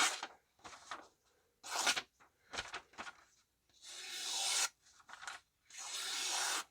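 A 12C27N steel folding-knife blade slicing through a sheet of notebook paper. A few short paper rustles come first, then two longer slicing strokes of about a second each, one near the middle and one at the end. The edge is sharp and slices well, though a little toothy.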